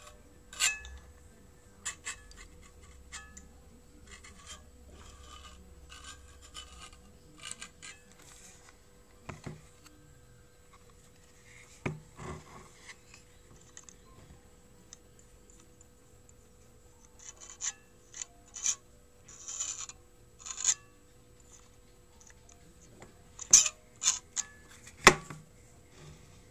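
Hands handling a homemade solenoid engine built from an old hard drive, with irregular clicks, scrapes and metal rubbing from its platter hub and wire connecting rods. A few sharper knocks come near the end.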